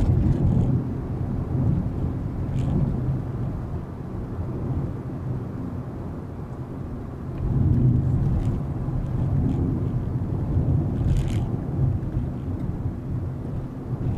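Volkswagen Vento's 1.2 TSI turbo petrol engine and tyre noise while driving, a continuous low rumble that rises and falls, growing louder about halfway through.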